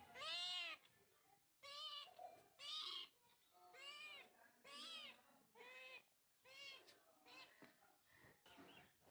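Cat meowing again and again: about eight short meows, each rising then falling in pitch, the last few fainter.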